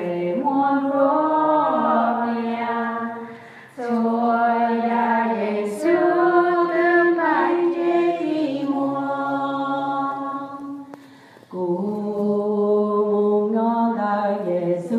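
A group of people singing together in long held notes, pausing briefly twice between phrases.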